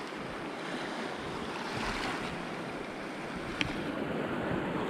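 Shallow reef water lapping and washing, with wind on the microphone. A brief high tick sounds about three and a half seconds in.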